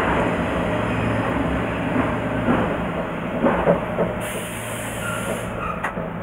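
Cab of an Ichibata Electric Railway 2100 series electric train (ex-Keio 5000 series) rolling slowly through the depot. There is a steady running rumble and hum, a few clunks as the wheels cross rail joints and points, and a hiss of air about four seconds in.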